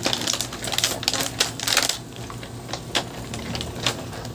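Rapid clicking and clattering of a clear plastic case and the small items inside it being handled, dense for about two seconds and then sparser.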